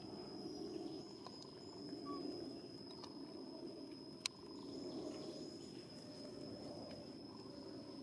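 Outdoor ambience: a steady, high-pitched insect whine holds throughout over a low background hum, with one sharp click about four seconds in.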